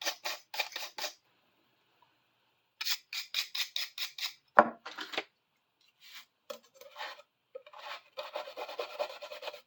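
Brisk back-and-forth scrubbing on the wood-cutting blade of a small handsaw, about four or five strokes a second, coming in three spells with pauses between them. A sharp knock about halfway through is the loudest sound.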